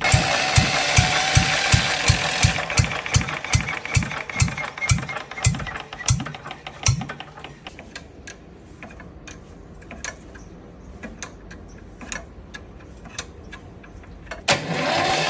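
Eicher air-cooled diesel engine running after repair, with slow, regular thumping firing strokes, about three a second, over a hiss. About seven seconds in it becomes much quieter and the beats fade, then it comes back loud near the end.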